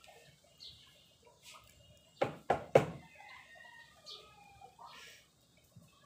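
A chicken clucking, with three loud squawks in quick succession a little over two seconds in.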